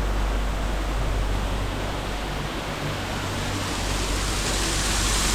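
Waterfall water rushing steadily, with a low rumble under the hiss; the hiss grows brighter near the end.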